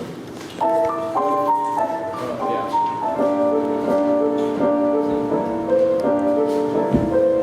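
Instrumental music intro: keyboard chords, held notes changing every half second or so, beginning about half a second in.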